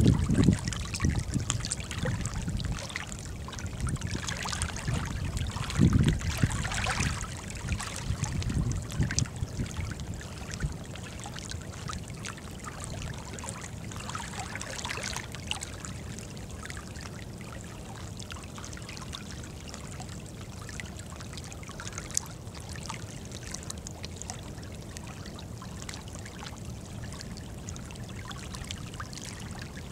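Small wavelets lapping and trickling among shoreline rocks. A low rumble swells and fades a few times in the first ten seconds or so, then the sound settles to a steady, quieter wash.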